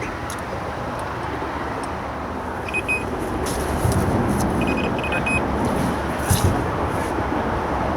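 Steady traffic noise from the A14 road bridge, vehicles passing continuously and growing a little louder about halfway through. Two short runs of high beeps come through, about three seconds in and again about five seconds in.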